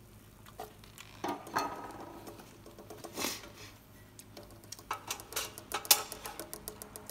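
Chopsticks clicking and scraping against a frying pan while pieces of chicken skin frying in oil are turned and lifted. The clicks are light and scattered at first and come thick and fast in the second half.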